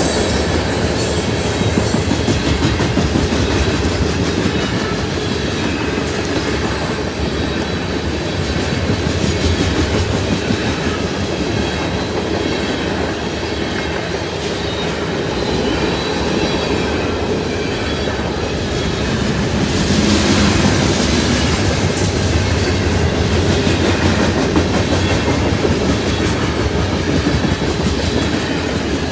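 Freight train rolling past: a steady rumble of steel wheels on rail with clickety-clack over the rail joints.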